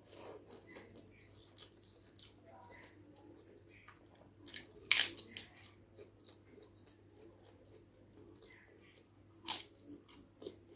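Close-up eating sounds: crisp papad cracked and bitten with sharp crunches, loudest about five seconds in and again near the end, between quieter chewing of rice.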